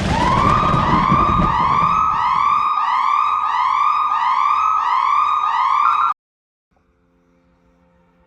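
A siren wailing in fast repeated rising-and-falling cycles, about one every three-quarters of a second, over a rushing noise for the first two and a half seconds. It cuts off abruptly about six seconds in.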